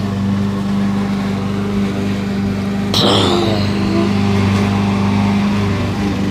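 A steady low engine-like hum, with a sudden loud noisy burst about three seconds in that trails off into a falling whistle-like tone.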